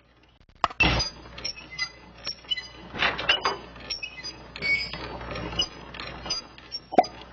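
Irregular mechanical clanking and clinking: a sharp click and a louder clatter about a second in, then a run of short knocks and clinks, and another sharp click near the end.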